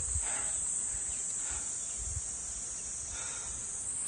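Steady high-pitched insect chorus, with a few faint rustles and a soft low thump about two seconds in.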